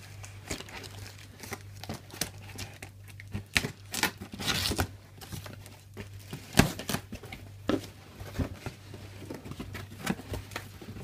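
A taped cardboard box being torn open by hand, with packing tape ripping and cardboard flaps crackling as they are pulled apart in irregular bursts. This is followed by foam packing peanuts rustling as hands move through them.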